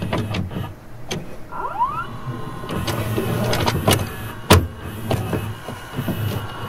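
Mechanism of a video cassette deck clicking and clunking, with a short motor whine rising in pitch about a second and a half in and a loud click about four and a half seconds in.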